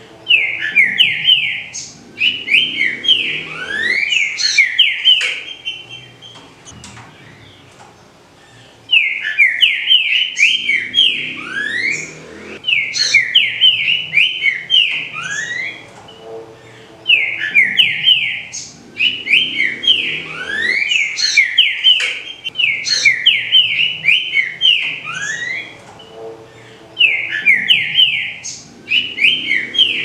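Green-winged saltator (trinca-ferro) singing: loud bouts of rapid whistled notes that slide down and up, each bout a few seconds long. The song repeats with short pauses and a quieter stretch about six to nine seconds in.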